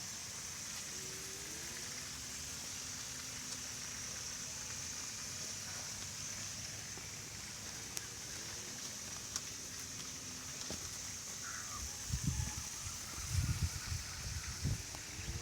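Steady outdoor ambience: a constant high hiss with a few faint, distant gliding calls. From about twelve seconds in, irregular low thuds.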